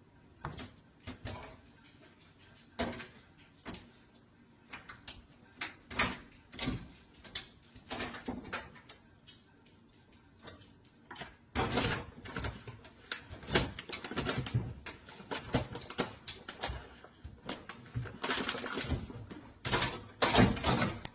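A cat scrabbling at an open kitchen cabinet: claws scraping and knocking against the wooden cabinet and the microwave below, with the rustle of a packet it is pawing, in irregular bursts that come thicker about half way through and again near the end.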